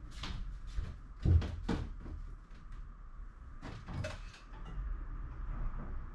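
A few light knocks and clicks, with one heavier thump about a second and a quarter in, over a faint steady hum.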